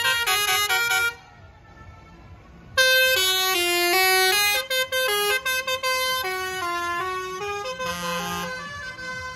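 Musical air horn on a passing tractor playing a tune one note at a time. A short run of notes is followed by a pause of about a second and a half, then a longer melody starts about three seconds in and is loudest at the start, fading slowly toward the end.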